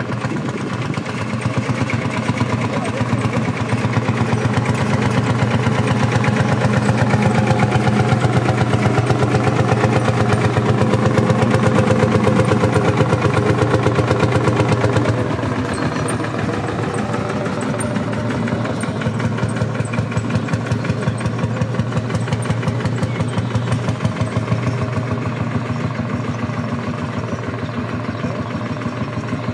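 1946 Field Marshall tractor's single-cylinder two-stroke diesel engine running with a steady, even beat as the tractor drives past. It grows louder as the tractor comes close, then drops to a quieter level about halfway through as it moves away.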